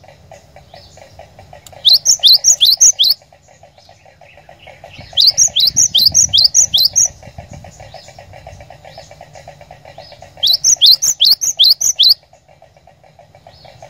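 Cinereous tit (glatik batu) singing in three loud bursts a few seconds apart. Each burst is a quick run of about six to eight high whistled notes, each note sweeping downward. A steady, fast pulsing buzz and a low hum run underneath.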